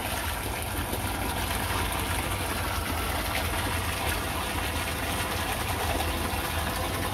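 Steady low mechanical hum under a constant wash of water-like noise, with no distinct events.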